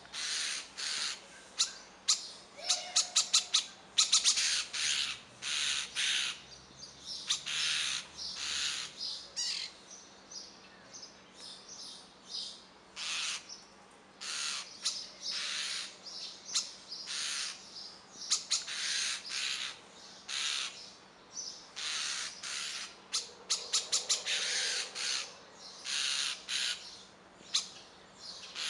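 Common starling nestlings begging: a continuous series of harsh, hissing calls, each a few tenths of a second long and coming about one or two a second, with a couple of quick rattling runs of clicks.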